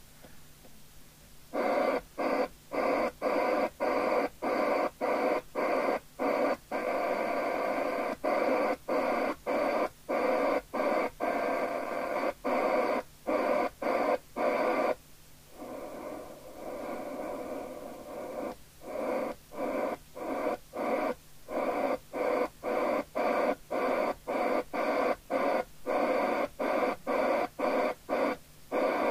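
Fidelity 1000 FM CB radio's speaker giving out a weak signal from a distant station that cuts in and out rapidly, about one and a half to two times a second. It dips quieter for a few seconds midway, then resumes the same chopping.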